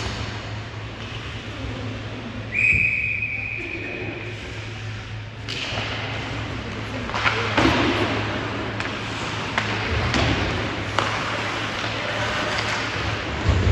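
Referee's whistle blown once and held for about two seconds, among scattered knocks and thuds of play in an arena over a steady low hum.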